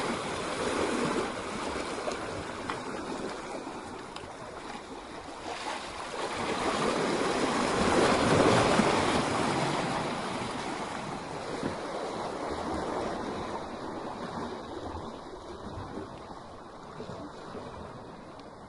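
Sea waves surging and breaking against rocks: a rush of foaming water that swells to its loudest about eight seconds in, then ebbs away.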